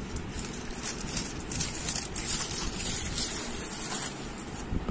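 Aluminium foil crinkling and rustling as it is peeled off a foil cake tin by hand, loudest in the middle of the stretch, over a steady background noise.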